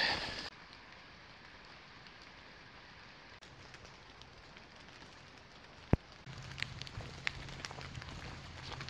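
Water dripping off the leaves of the forest canopy as mist collects on them: scattered drops pattering like light rain, with one sharper drop about six seconds in.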